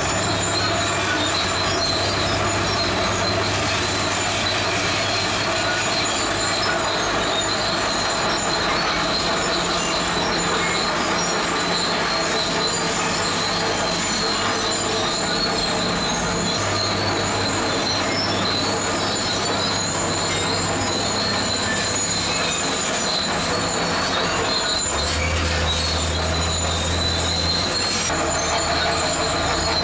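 Zoomlion crawler bulldozer working: a diesel engine whose low note rises and falls with the load, under a steady high squeal of steel tracks and running gear.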